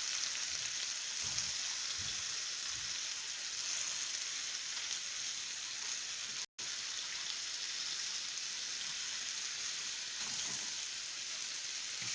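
Chopped onion, pepper, potato and garlic sautéing, giving a steady sizzle. The sound is broken by a split-second gap just past halfway.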